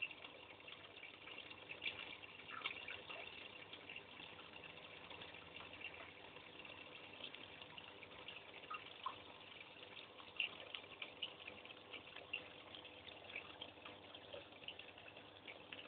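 Faint, steady trickling water with many small scattered ticks and drips, over a low steady hum.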